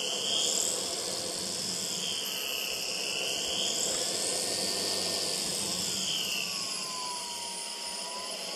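JetCat model turboprop engine on a radio-controlled Pilatus PC-6 running as the model taxis, a high turbine whine over propeller noise, its pitch slowly wavering up and down.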